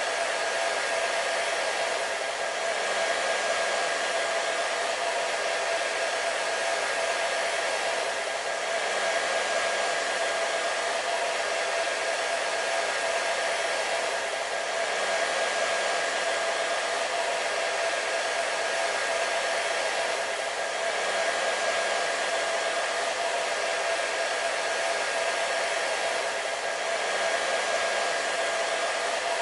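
Hair dryer running continuously, a steady airy hiss with a constant motor whine, swelling slightly in loudness every few seconds.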